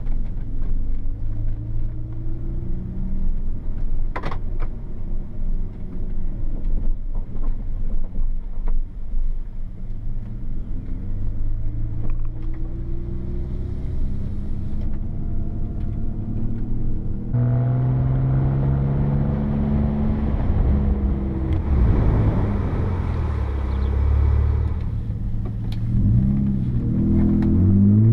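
Exhaust of a BMW 325ti E46 straight-six with the rear muffler deleted and replaced by a straight stainless tube, running under way with the engine note rising and falling. The note gets louder about two-thirds of the way through and climbs again in a rev near the end.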